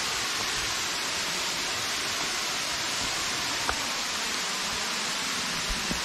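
Waterfall rushing: a steady, even hiss of falling water, with one small click about two-thirds of the way through.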